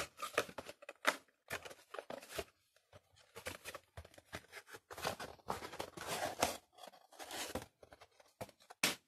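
A small product box being opened and its packaging handled: a run of irregular rustling and scraping noises, busiest around five to six and a half seconds in.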